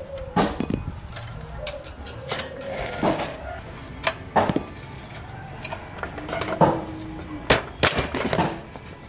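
Combination wrench working the axle nuts of an old bicycle: a string of sharp metal clinks and knocks as the spanner turns the nuts and strikes the axle and frame, some with a brief ring.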